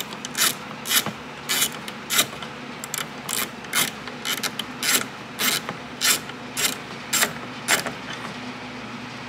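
Ratchet wrench with an 8 mm socket clicking in short bursts, about two strokes a second, as it backs out the horn's mounting bolt. The strokes stop about eight seconds in.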